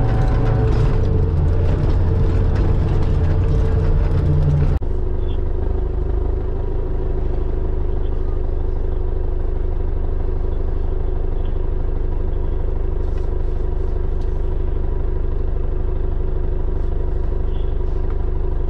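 Off-road 4x4's engine running while driving over a rough forest track, with rattling from the vehicle. Almost five seconds in the sound cuts to a steady, even engine idle with the vehicle standing still.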